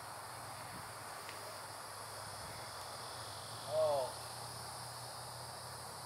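Steady chorus of insects, a high even buzz. About four seconds in there is a short call of a few quick falling notes, the loudest sound.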